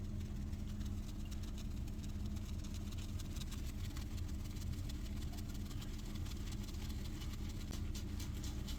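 Badger shaving brush being swirled on a puck of shaving soap to load it, a rapid, fine scratchy swishing of bristles on the soap, over a steady low hum.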